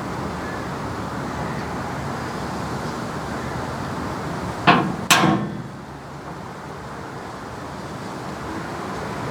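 Two sharp metal-on-metal strikes about half a second apart, a little under five seconds in, each ringing briefly. They sit over a steady background noise that drops right after them.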